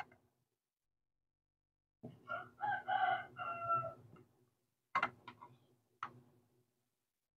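A rooster crowing once, a cock-a-doodle-doo about two seconds long that ends on a held note. After it come two sharp plastic clicks about a second apart, as the door of the miniature toy fridge is handled.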